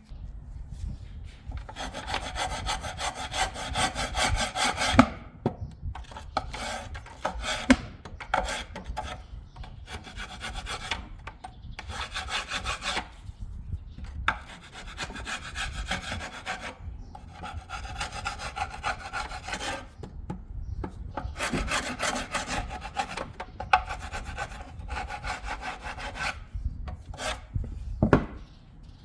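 Carbon deposits being scrubbed and scraped off an engine intake manifold: bouts of fast, rasping rubbing strokes a few seconds long, with short pauses between them.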